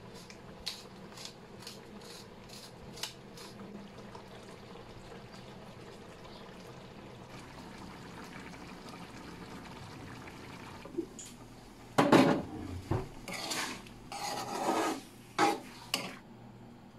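A metal ladle scraping and clanking against a large metal cooking pan, in a loud cluster of clatters starting about twelve seconds in. Before that, a few light ticks over a low steady background.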